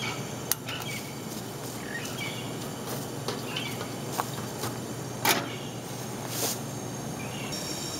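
Propane camp stove being lit with a few sharp clicks, then a speckled enamel stock pot set down on its metal grate with a knock about five seconds in. Faint bird chirps and a steady hum sit underneath.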